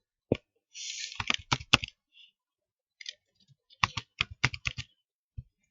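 Typing on a computer keyboard: short irregular runs of key clicks, one run about a second in and another about four seconds in, with a pause between.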